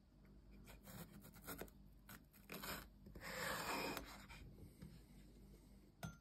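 Cleaver-style kitchen knife cutting bell pepper on a wooden cutting board: a run of light taps of the blade on the board, then a longer scraping slice about three seconds in, and one sharp click near the end.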